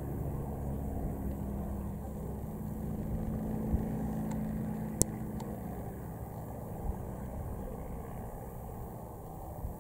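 Piston aero-engines of First World War replica fighter aircraft droning steadily at a distance, the drone easing off gradually in the second half. A single sharp click about halfway through.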